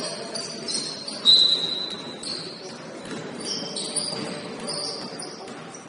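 Basketball sneakers squeaking on a gym floor during play, many short high squeaks over the hubbub of a large hall, with a basketball bouncing. About a second in comes one longer, steady high squeal that is the loudest sound.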